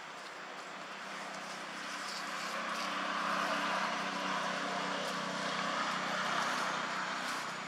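A distant engine passing by: a steady motor hum that swells over the first few seconds, holds, and fades again near the end.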